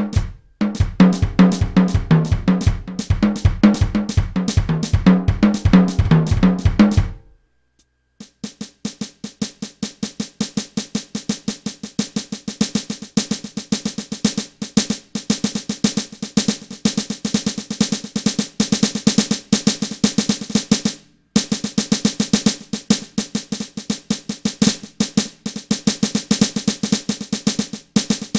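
Drum kit being played: a groove of kick drum and tom hits for about seven seconds, a brief stop, then fast snare rolls and rapid strikes that pause once for a moment about two-thirds through.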